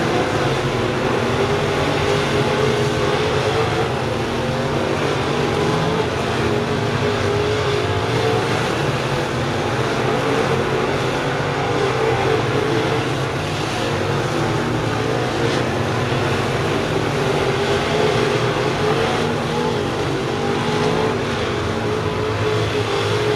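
A pack of crate-engine dirt-track race cars running laps together: a loud, continuous engine drone whose pitch wavers slightly as the cars go round the oval.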